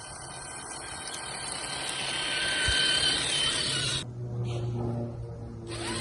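Traxxas TRX-4 Sport RC truck's electric motor and geared drivetrain whining over a steady hiss, the whine rising slightly as it drives. About four seconds in this cuts off abruptly and background music with steady low tones begins.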